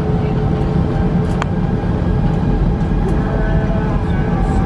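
Airbus A319 takeoff roll heard from inside the cabin: the jet engines at takeoff power and the runway rumble make one loud, steady, low roar. A single sharp click is heard about a second and a half in.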